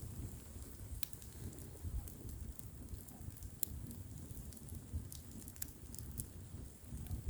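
Bonfire burning with scattered sharp crackles and pops, over a steady low rumble of wind.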